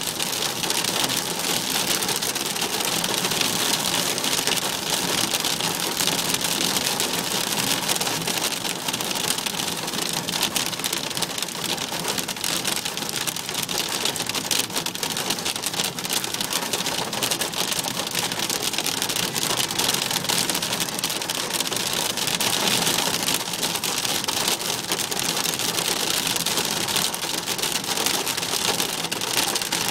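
Heavy rain in a flash-flood downpour: a loud, steady hiss of rain made of countless tiny drop hits, unbroken throughout.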